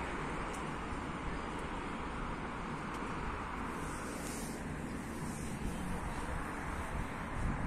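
Steady road traffic noise from cars driving on the road below, with wind rumbling on the microphone.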